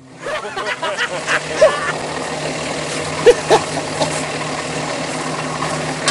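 Jeep Cherokee's engine idling steadily while it sits stuck in mud, with short voice-like calls and a few knocks around the middle.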